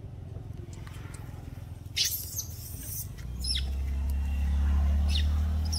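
A low engine-like rumble that grows louder about three seconds in and then holds steady. A short, sharp high chirp or squeak cuts in about two seconds in.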